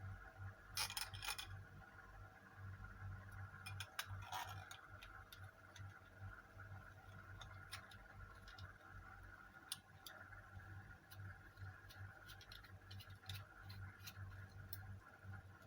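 Scattered faint clicks and taps of plastic parts being handled as a selfie stick is fitted and locked, over a steady low hum.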